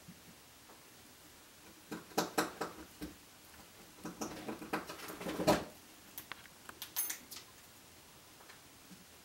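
Capybara making short clicking squeaks in bursts: a cluster about two seconds in, a longer run from about four to five and a half seconds, and a few more around seven seconds.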